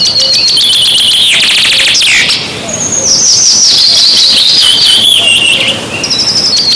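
A songbird singing loudly, in rapid high trills and sliding, mostly falling whistled notes. The same phrase starts over near the end.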